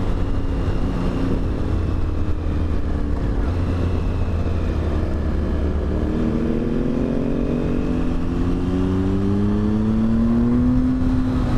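Triumph Speed Triple 1050's inline three-cylinder engine with Arrow aftermarket exhausts, heard from the rider's seat. It runs steadily at first, then accelerates from about six seconds in, its pitch rising until near the end.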